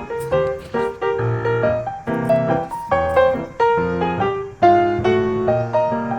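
Background piano music: a light melody of struck notes, several a second, each fading after it is played.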